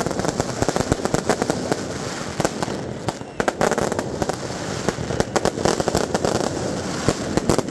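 Fireworks and firecrackers going off in a dense string of sharp bangs and cracks, several a second, over a steady din, easing briefly about three seconds in before picking up again.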